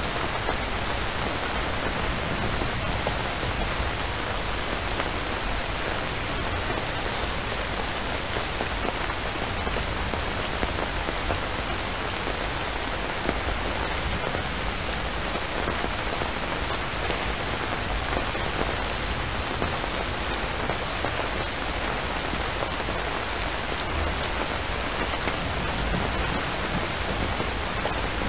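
Steady rain falling, an even, unbroken hiss of many drops at a constant level.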